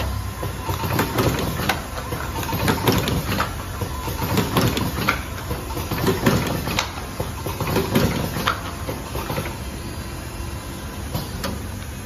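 Vertical automatic cartoning machine running: its rotary turret and forming stations clatter with many irregular clicks and knocks over a steady mechanical hum.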